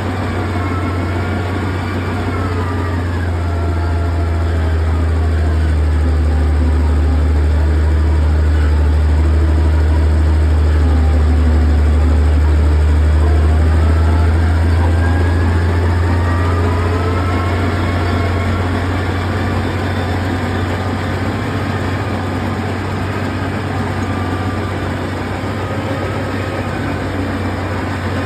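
Heavy equipment engine running with a steady low drone, and a higher whine that drops in pitch a few seconds in and climbs back up around the middle.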